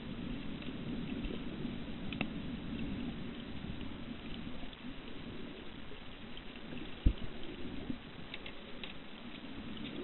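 Moving water, a steady wash with scattered faint ticks, and one sharp low thump about seven seconds in.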